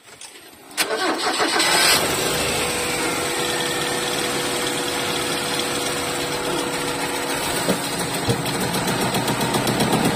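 Ford Lynx four-cylinder car engine cranked by the starter, catching under a second in, flaring briefly, then settling into a steady idle.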